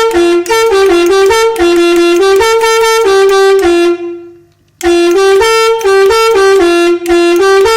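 Three-trumpet 'telolet' bus air horn, driven by a 20-tune module, playing a short melody of quick stepping notes. The tune stops about four seconds in and, after a short pause, plays again.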